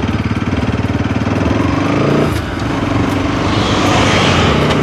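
Motorcycle engine running close to the microphone, its firing pulses steady, with a short dip about two seconds in and a rise of hiss near the end.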